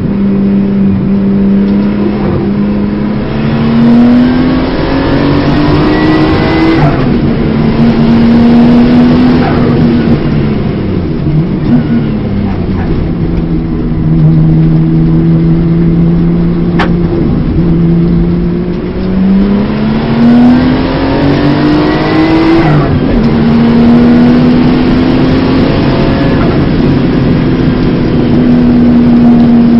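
Porsche 930 Turbo's turbocharged flat-six, heard from inside the cabin, pulling hard and climbing in revs. The pitch drops sharply at each upshift, about a quarter of the way in and again about three quarters through. In between it runs lower and steadier through a slow corner.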